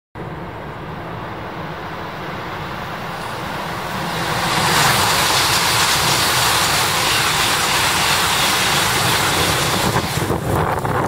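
Tohoku Shinkansen bullet train passing at high speed just out of a tunnel. A rushing noise builds over the first four seconds or so and then stays loud and steady while the cars go by. Near the end it turns ragged as the tail passes.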